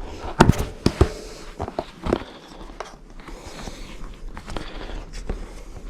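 Plastic tyre levers working a stiff tubeless road tyre's bead over the wheel rim: a few sharp clicks and knocks in the first two seconds, then soft scraping and rustling.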